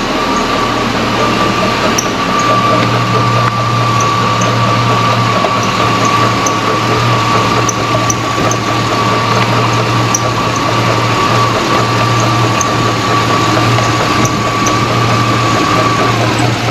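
GMC truck engine running with its drive belt giving a steady high squeak, which fades and stops shortly before the end as the belt lubricant takes hold.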